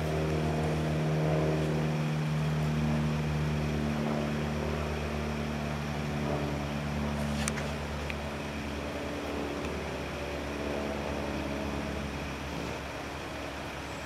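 A motor engine drones steadily, then slowly fades away over the second half. A single short click sounds about halfway through.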